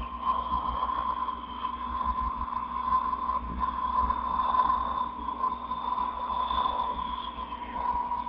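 Horror sound effect: a steady, dark drone with a held mid-pitched tone and a fainter high one over a low rumble.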